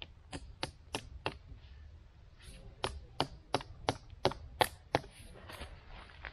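A tent peg being hammered into hard ground: sharp knocks, four in quick succession, a short pause, then a faster run of about seven, the last ones loudest.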